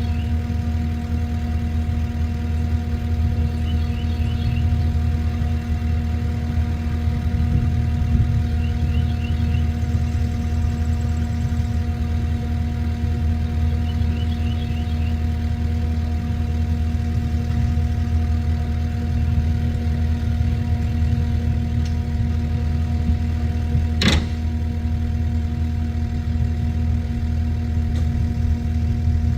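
A large engine idling steadily, with a single sharp click about 24 seconds in and faint short high chirps every few seconds.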